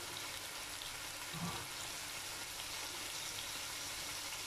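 Curry base of onions, garlic, tomato and spices frying in oil in a stainless steel pot: a steady soft sizzle.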